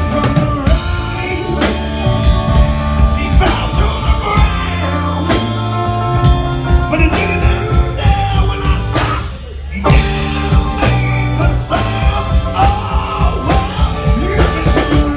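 Live rock band playing loud: drums and electric bass, with a man singing into a microphone. The band stops briefly about nine seconds in, then crashes back in.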